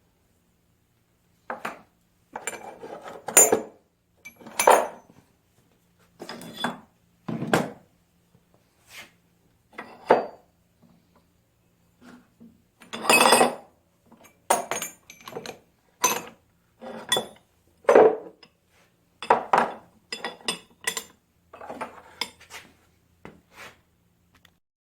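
Steel parts being picked up, shuffled and set down on a table: irregular clanks and clinks of metal on metal, one after another with short pauses.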